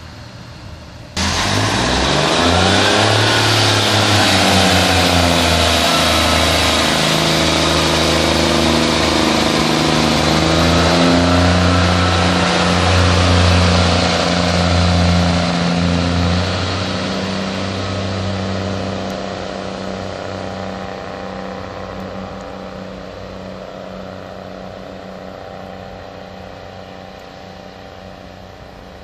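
Northern Class 142 Pacer diesel multiple unit's underfloor diesel engines pulling away under power, the engine note rising as it accelerates, then holding steady. Over the last dozen seconds the sound slowly fades as the unit draws off down the line.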